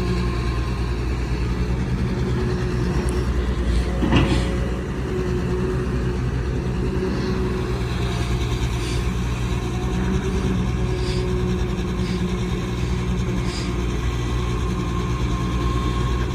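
CAT 320D excavator's diesel engine running steadily while it works, with a loud clank about four seconds in and a few lighter clicks later on.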